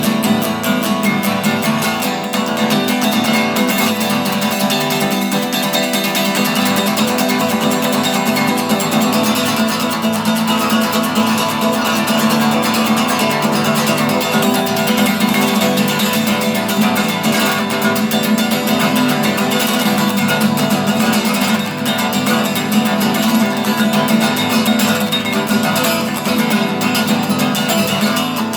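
Guitar strummed fast and continuously, with no break.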